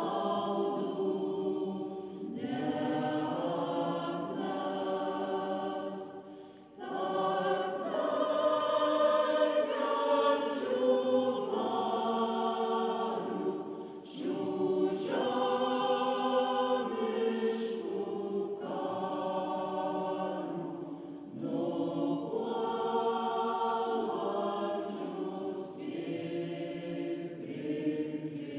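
Mixed choir singing in long phrases, with brief breaks between them.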